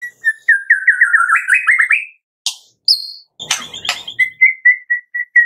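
White-rumped shama singing: a fast run of quick whistled notes, then a couple of harsh rasps and a short high whistle, then an even run of short repeated notes near the end.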